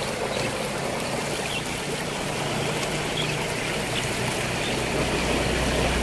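Fast, swollen floodwater rushing in a canal, a steady rush of water. A low rumble grows toward the end.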